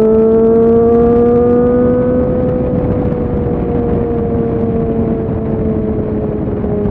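Suzuki Bandit 650's inline-four engine under way, its pitch rising slowly for the first few seconds and then falling gradually as the throttle eases, with wind rush over it.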